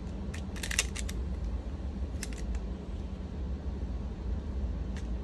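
Light metal clicks and rattles of wire ski-brake arms being worked into a Look Pivot binding heel piece: a quick cluster of clicks near the start, a few more about two seconds in and a single click near the end, over a steady low hum.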